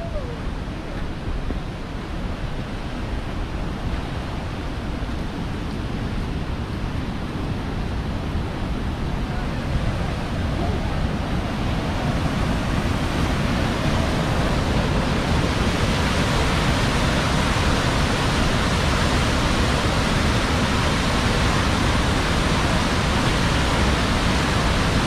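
Rushing water of a fast mountain stream, a steady full hiss that grows gradually louder and brighter through the second half, as of the stream drawing nearer.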